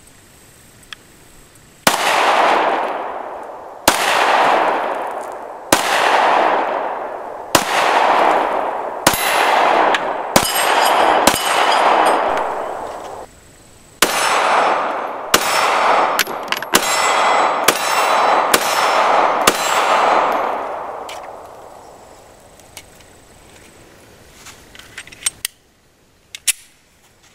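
A Glock 43 9mm pistol being fired, about sixteen shots: slow and evenly spaced at first, then faster after a brief pause. Each shot trails off over a second or more. A few faint clicks of the pistol being handled come near the end.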